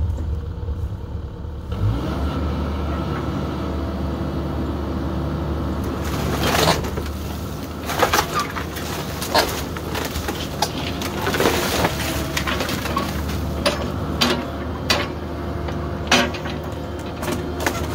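Caterpillar mini excavator's diesel engine running steadily under load as its bucket and thumb tear into an old wooden shed roof. From about six seconds in, sharp cracks and crunches of splintering wood and roofing come every second or two.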